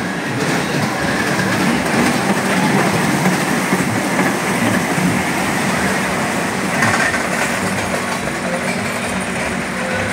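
Cars of a small steel roller coaster running along the track: a steady noise of wheels on steel rails.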